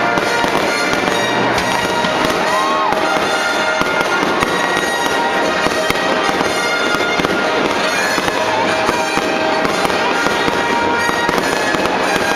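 Fireworks display going off without a break: a dense, fast crackling of many small pops and reports.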